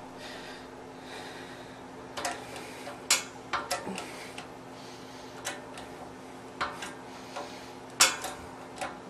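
A dozen or so sharp, irregular clicks and light metal taps from handling an AK barrel and trunnion in a press, over a faint steady hum.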